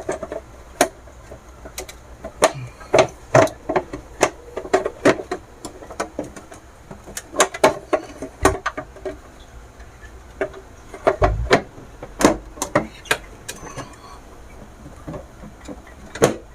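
Irregular plastic clicks and knocks as the housing of a Skywing 5-stage alkaline water purifier is closed up over its newly fitted filter cartridges, with a duller thump about eleven seconds in.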